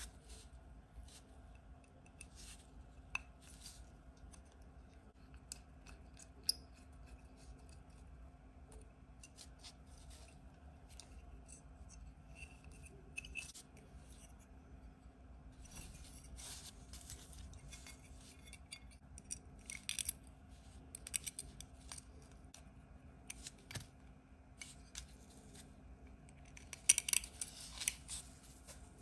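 Scattered light clicks, scrapes and snips of small hand tools and plastic and metal kit parts being handled during model assembly, getting busier in the second half with a louder flurry near the end.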